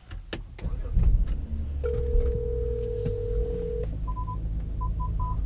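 A telephone ringing tone inside a car's cabin: one steady two-second tone as the call rings out, then a few short higher beeps near the end, over a low rumble.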